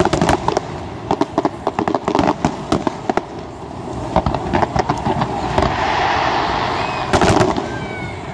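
Fireworks display: a rapid run of sharp cracks and bangs as shells burst, then a rising hiss, then a cluster of loud bangs about seven seconds in.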